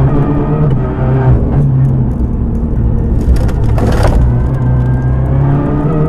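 Turbocharged four-cylinder engine of a Renault Clio R3T rally car heard from inside the cockpit at full stage pace, its revs rising and falling through gear changes. About three and a half seconds in there is a short hissing, crackling burst, and the revs climb again near the end.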